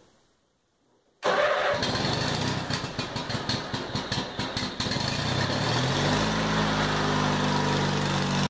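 Riding lawn tractor's small engine starting on its newly fitted automotive battery: it fires about a second in and runs ragged with rapid uneven strokes for a few seconds, then its speed rises and it settles into a steady run. Cuts off suddenly at the end.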